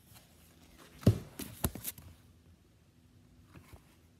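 A paperback picture book being handled: a thump about a second in, followed by a few quick paper rustles and taps.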